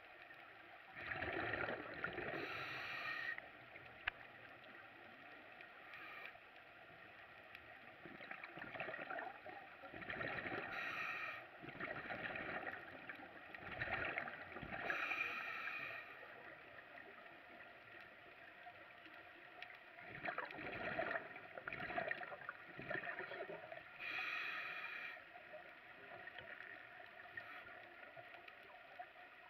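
Scuba diver breathing through a regulator underwater: a hiss with each breath and a bubbling rush of exhaled bubbles, repeating every few seconds.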